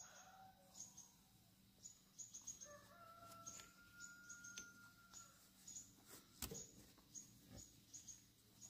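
Faint rooster crowing once, a single held call of about two seconds starting about three seconds in, over repeated short high chirps of small birds. Two soft thuds come near the end.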